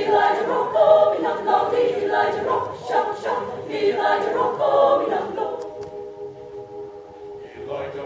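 Mixed choir of men and women singing a cappella in short, rhythmic syllables, then holding one sustained chord for about two seconds near the end.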